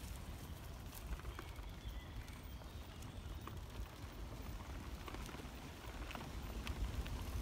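Steady low rumble on the microphone, with scattered light clicks and crunches from moving along a dirt woodland path.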